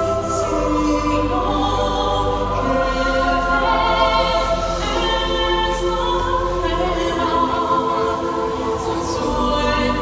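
Choral show music: voices singing long held chords that shift every couple of seconds.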